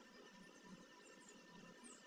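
Near silence: faint room tone with a thin steady hum.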